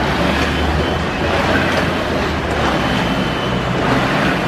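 Life Fitness water rowing machine being rowed: water churning in its tank and the mechanism running, a steady rushing rumble.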